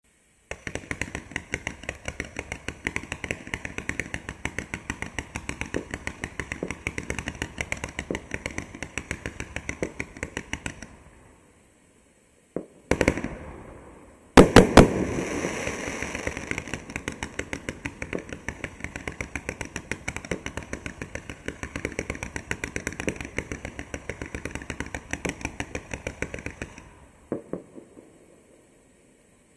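Winda 'Party Like It's 1776' 500-gram zipper cake firing its shots in rapid succession: a fast, continuous stream of small pops, many a second. It comes in two long runs of about ten seconds each. Between the runs there is a short pause broken by a couple of louder bangs.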